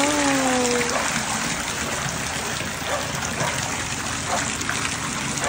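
Steady rush and splash of water in a tub crowded with live catfish.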